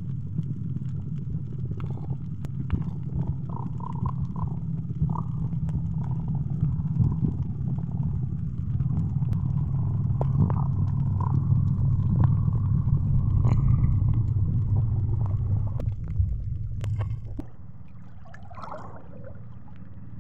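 Muffled underwater rumble from a camera held under the sea, with scattered clicks and scrapes. About three-quarters of the way through the rumble stops as the camera breaks the surface, leaving a quieter sound of open water.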